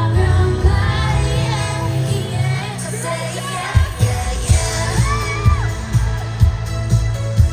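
Live K-pop performance heard through a stadium PA: women's voices singing over a pop backing track. The deep beat drops back at first, then a steady kick drum returns about four seconds in.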